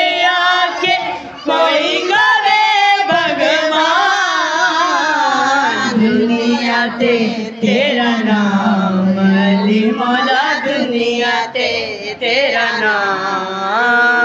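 A voice singing an Urdu-Punjabi devotional manqabat in long, wavering notes. A low steady note sounds beneath it from about six seconds in.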